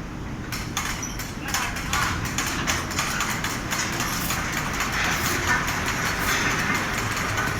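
Large automatic fabric spreading machine running: a steady low rumble under rapid clicks and rattles, getting busier and louder over the first two seconds.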